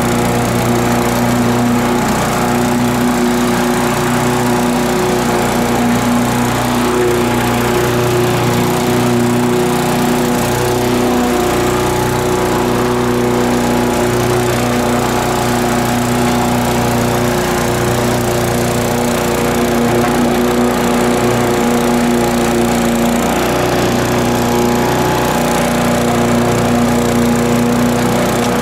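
Briggs & Stratton 550e single-cylinder gas engine on a walk-behind push mower, running at a steady speed while cutting grass.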